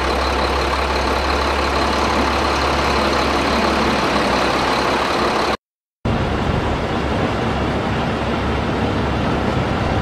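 Steady engine rumble of heavy machinery, an added sound effect, running at an even level; it cuts out completely for a split second just past halfway, then resumes.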